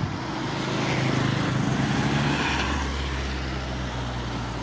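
Airbus A319-111 on final approach, its two CFM56 turbofan engines giving a steady low drone under a rushing hiss, swelling slightly about a second in.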